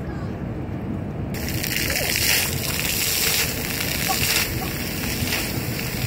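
Ground-level fountain jets switch on suddenly about a second in, then spray and splash onto wet pavement as a loud hiss of rushing water that swells and eases, over a low city rumble.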